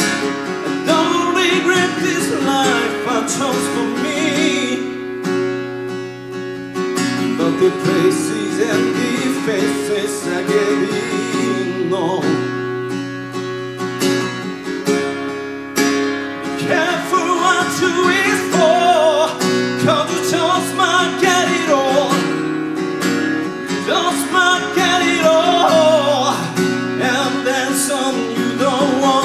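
A man singing a song live, accompanied by his own acoustic guitar.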